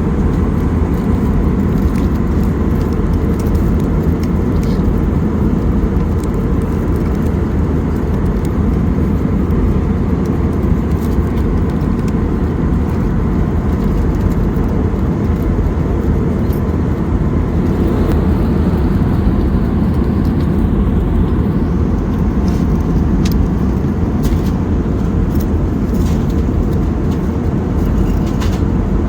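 Airbus A320 cabin noise in flight: a steady, loud rush of airflow and engine drone with a faint constant hum. A few faint clicks come in the second half.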